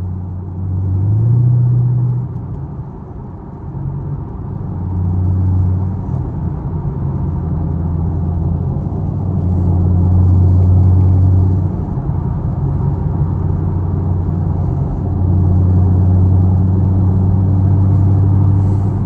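Chevrolet Camaro SS V8 engine and exhaust droning while cruising. The drone climbs briefly in pitch about a second in, eases off, then swells and fades with the throttle.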